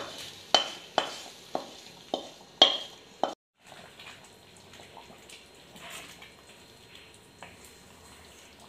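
A spoon knocking and scraping against a metal kadai, about seven sharp clanks in the first three seconds, as sautéed onion-tomato masala is scraped out into the chicken curry. Then quieter scraping and stirring of the curry in the pot.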